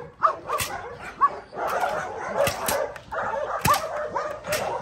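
Belgian Malinois barking aggressively at a decoy in protection training: a rapid run of short, sharp barks, about two a second.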